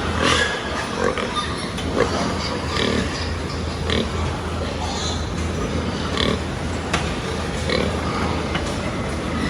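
Pigs grunting and squealing in short calls about once a second, with a few sharp knocks, over a steady low hum.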